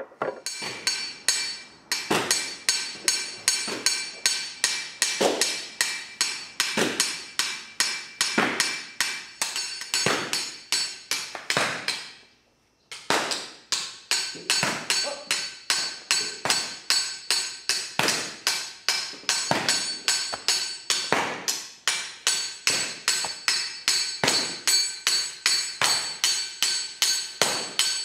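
A tool striking a mound of onggi clay in a fast steady rhythm, about three strikes a second, each with a short ring. The beating stops briefly about halfway through, then carries on.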